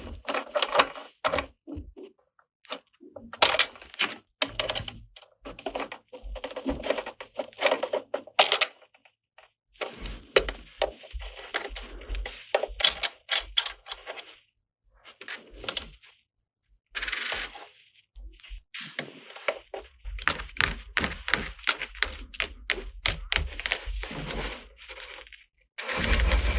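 Small hard plastic toy kitchen pieces being handled: irregular clicks, taps and knocks in quick clusters, with rustling between them and brief pauses.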